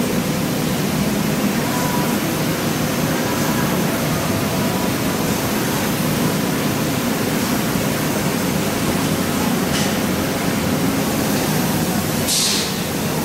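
Mazak Super Turbo X44 CNC laser cutter cutting sheet metal: a steady rushing hiss, with a brief louder hiss near the end.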